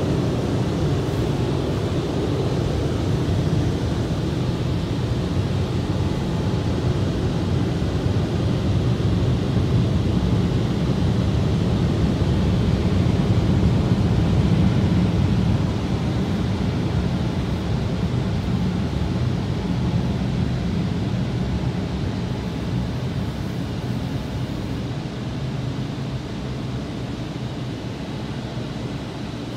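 Automatic rollover car wash gantry working over the car, heard from inside the cabin: a steady rushing noise that slowly fades over the second half.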